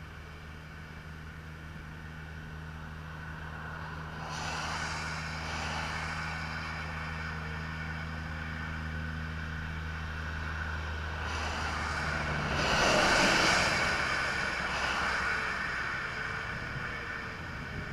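Highway traffic passing: tyre and engine noise swells as vehicles go by, first about four seconds in and loudest about thirteen seconds in. Underneath is a steady low engine hum.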